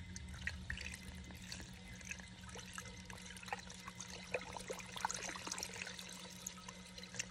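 Engine flush poured from a can through a funnel into an engine's oil filler: a steady trickling, splashing pour, with a steady low hum underneath.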